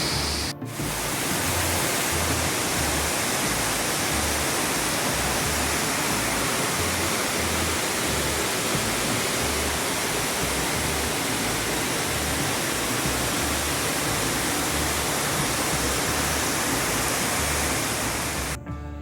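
Large waterfall: a loud, steady roar of plunging water, broken by a short dropout under a second in and cutting off just before the end.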